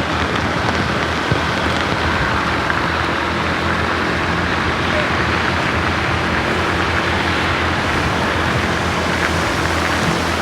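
Steady road-traffic noise: a vehicle engine humming under a constant even hiss, with no horn sounded.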